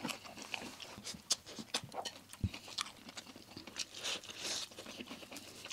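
Close-up crunching and chewing of crispy breaded fried chicken, with irregular small crackles and clicks from the bites.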